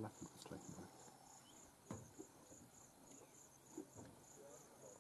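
Near silence apart from faint insect chirping: a high-pitched pulse repeating a few times a second, with two soft knocks about two and four seconds in.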